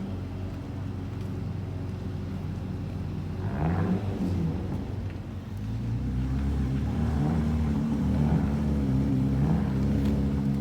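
Car engine running, with a brief rev about four seconds in. From about six seconds it becomes louder and fuller, its pitch wavering slightly.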